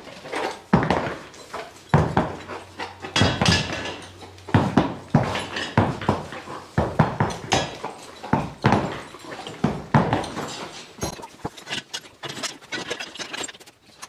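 Belgian draft horses walking in harness on a dirt barn floor: irregular hoof thuds mixed with the clinking and clanking of trace chains and the metal evener dragging behind them.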